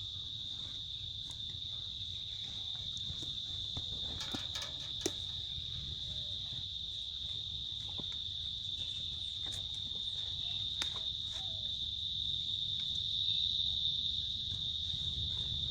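A chorus of insects drones steadily on one high pitch, with a few faint clicks here and there.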